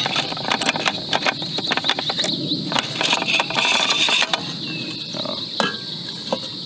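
Clicks and light metallic knocks of a lightweight aluminium camping cook pot being handled, its folding handle flipped around against the pot. The clicks come thick for about four seconds, then thin out to a couple of light knocks near the end as the aluminium windscreen is picked up.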